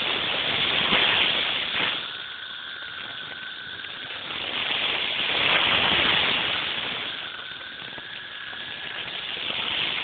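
A very loud, dense chorus of 13-year periodical cicadas swells and fades in slow waves every few seconds. A steady high whine rises out of it twice.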